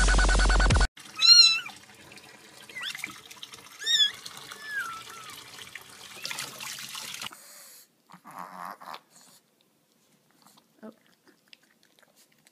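Small kitten meowing several times in high, wavering cries, over the steady hiss of a tap running into a sink. Dubstep music cuts off in the first second, and a brief noise follows about eight seconds in.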